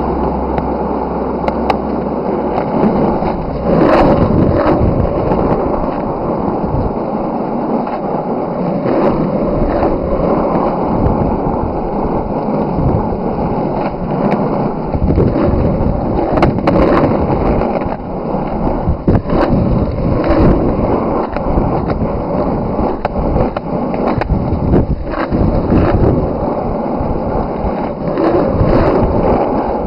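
Skateboard wheels rolling on a road surface, a steady loud rolling noise broken by sharp clacks every few seconds.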